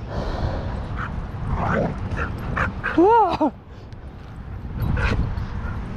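Dogs playing rough, giving several short yips, with one loud yelp about three seconds in whose pitch rises and then falls.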